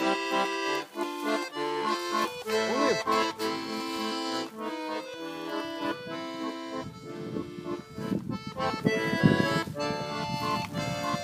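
Bayan (Russian button accordion) playing a tune in sustained chords. From about seven seconds in, a low rumbling noise runs underneath the music.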